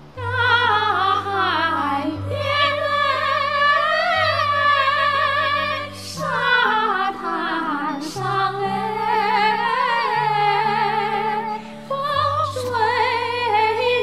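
Two women singing a Chinese duet with strong vibrato over a backing track of sustained low notes; the voices come in right at the start and carry on phrase after phrase with short breaks.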